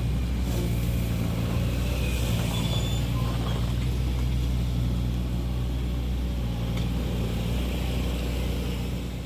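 Komatsu MR30 mini excavator's diesel engine running steadily under work, with a few faint high squeaks over it.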